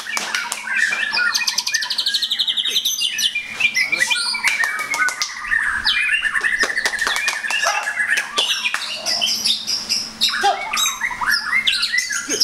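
White-rumped shamas (murai batu) singing loudly, several birds overlapping in a dense stream of rapid, varied whistles, trills and sharp chip notes.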